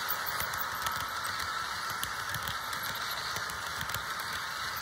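HO scale model train, a Roco Siemens Taurus locomotive hauling a 16-car consist, running along the track: a steady rolling hum with many irregular small clicks and rattles from the wheels on the rails.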